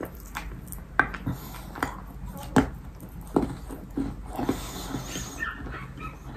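A person chewing a mouthful of baked yellow sandy clay cookie and clay paste close to the microphone: irregular sharp crunches, about one every half second, softening toward the end.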